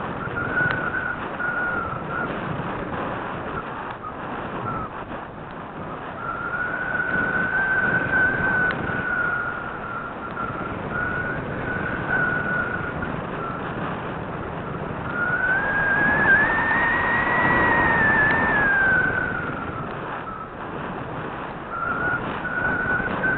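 Airflow rushing past a small onboard camera on a model aircraft in flight, with a thin whistling tone that comes and goes. The tone rises in pitch and gets louder about two-thirds of the way through, then falls back.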